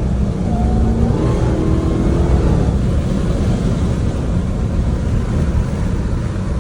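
Dodge Challenger SRT Demon 170's supercharged HEMI V8 running as the car drives, a steady low rumble with road noise heard from inside the car, its engine pitch stepping up about a second in.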